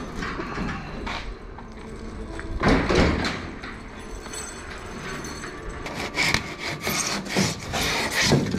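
Boat trailer being pulled on a hand trailer dolly, its small wheels rolling and rattling over concrete. Near the end comes the rubbing and scraping of rigid foam board being pushed against the aluminum hull.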